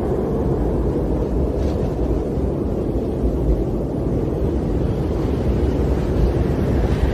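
Snowstorm wind blowing steadily, a low rushing rumble without gusts or breaks.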